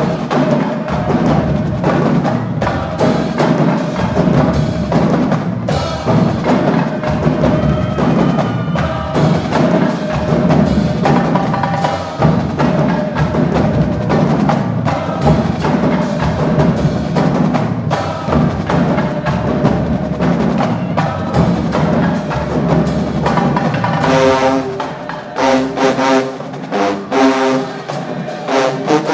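HBCU marching band playing: the drumline drives a dense, fast percussion groove under the horns. In the last few seconds the brass section plays short, punchy chords between the drum hits.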